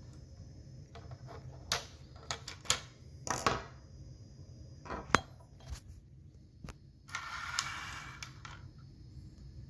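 Scattered clicks and clinks of small hard objects being handled, a few sharp knocks among them, then about a second of scraping or rustling just after seven seconds in, over a low steady hum.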